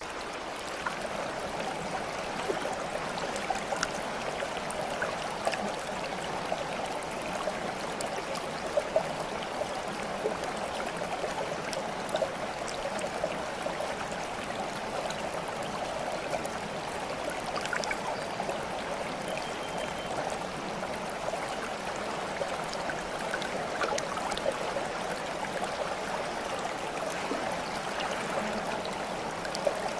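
Stream water flowing and babbling steadily, with small trickles and splashes scattered through it.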